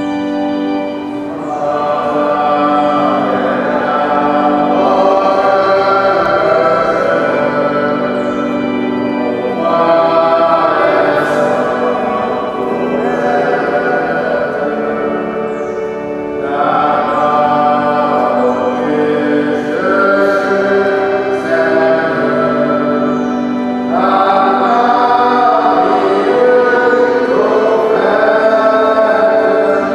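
Congregation singing a hymn with pipe or electronic organ accompaniment, the sung lines rising in phrases with brief dips between them.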